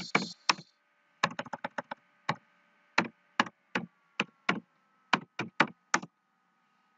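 Computer keyboard keys clicking as a word is typed and corrected: a quick run of keystrokes about a second in, then single strokes about half a second apart, stopping about six seconds in.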